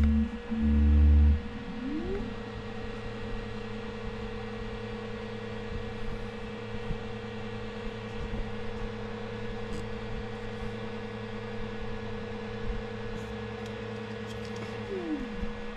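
The Elegoo Saturn 4 Ultra's Z-axis stepper motor raises the build plate out of the resin vat. Its whine rises in pitch as it speeds up about two seconds in, holds steady, and falls away near the end as it slows and stops. A brief loud low buzz comes in the first second.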